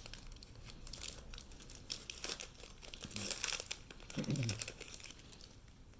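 Foil booster pack wrapper crinkling and rustling in the hands, with short papery bursts and light clicks as cards are handled.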